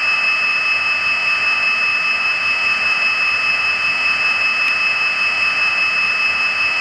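Onboard sound system of an HO-scale Athearn Genesis Conrail SD60I model locomotive playing its EMD diesel idle through a small speaker: a steady high-pitched whine over an even hiss.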